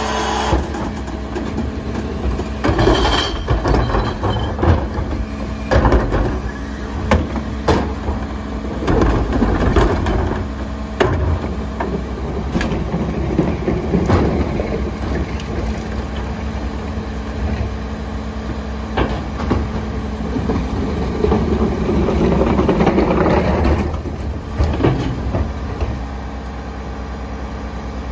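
Rear-loader garbage truck idling while plastic wheeled carts are tipped by hand into its hopper, with sharp knocks as the carts bang against the hopper edge. In the second half comes a louder grinding stretch as the hydraulic packer compacts the trash. It stops about four seconds before the end, leaving the steady idle.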